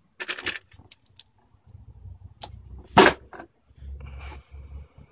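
Loose metal bolts and hardware clicking and clattering as they are sorted by hand, with one sharper clack about three seconds in.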